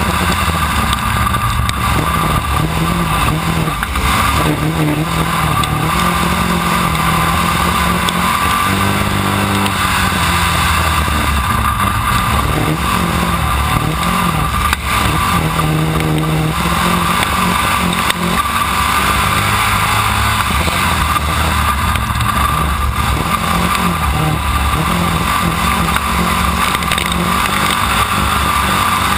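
B-Mod dirt-track race car's V8 engine heard close up from an onboard camera, running hard, with its pitch rising and falling as the car lifts and accelerates through the turns.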